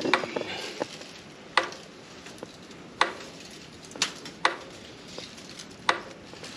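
A handful of sharp, irregularly spaced clicks and clinks, about six of them, over a steady background hiss.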